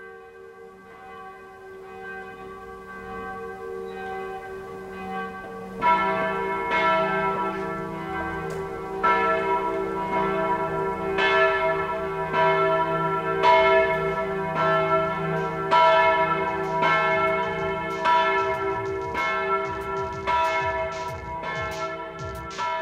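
Church bells ringing. The sound fades in as a sustained ringing hum; about six seconds in the strokes become loud and come roughly once a second, each ringing on into the next.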